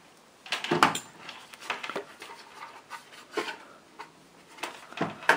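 Hands handling a multimeter, its test leads and the engine's wiring on a wooden workbench: a scatter of light clicks and knocks.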